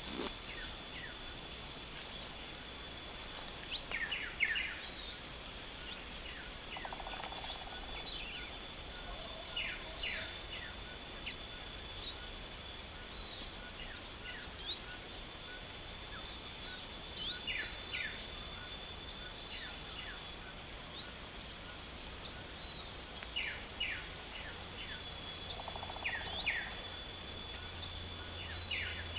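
Blue-black grassquits (tiziu), black males and brown females, giving short, sharply sweeping high calls every second or two, over a steady high insect drone.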